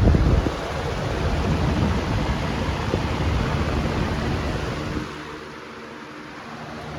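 Modified Lasko Airflex box fan running, its blade badly out of balance. A loud rough rumble starts suddenly at the start and drops away about five seconds in, leaving a steady motor hum.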